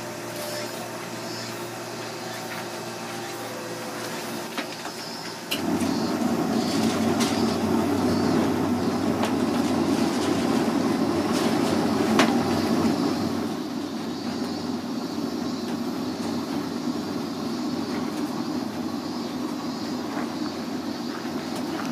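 Soft-serve ice cream machine running with a steady hum. About five seconds in it jumps to a louder, rougher motor sound, which eases off a little near the two-thirds mark.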